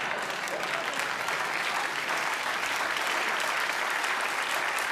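Studio audience applauding steadily: dense clapping from many hands at an even level.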